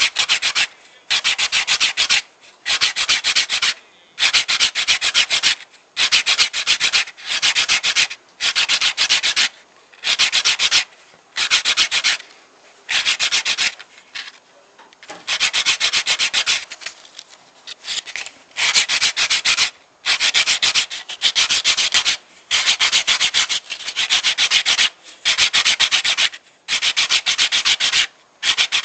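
Sandpaper rubbed by hand over an olive-wood bracelet: rasping back-and-forth strokes, most just under a second long, with short pauses between them and one longer stretch of steady sanding about halfway through.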